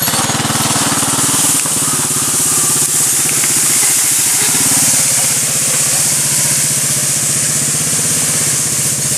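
Bombardier Traxter 500 ATV's single-cylinder Rotax engine running steadily under load as it drags a whole tree by a chain across asphalt. The leafy branches scraping over the pavement make a loud, even hiss over the engine.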